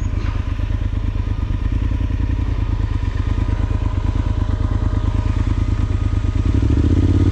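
Yamaha Super Tenere XT1200Z's parallel-twin engine running at low speed on a rough track, its exhaust pulsing steadily. It gets louder about six and a half seconds in as the throttle opens.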